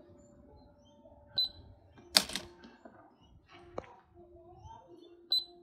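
Coles toy cash register giving two short high beeps as an item is scanned, about a second in and again near the end, with a loud clack about two seconds in and a smaller click in between.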